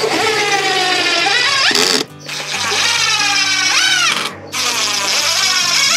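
Cordless impact driver driving screws through scrap wood into a wooden frame, running in three bursts of about two seconds each, the motor's pitch sliding and then sweeping up as each screw seats. Background music plays underneath.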